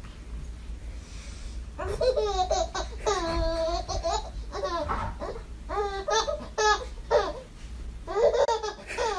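High-pitched squealing vocal calls in several bursts, wavering up and down in pitch.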